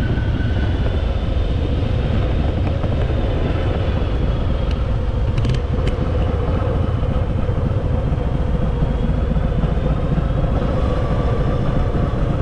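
Harley-Davidson Fat Boy's V-twin engine running steadily as the motorcycle is ridden, a dense, even low sound with no pauses.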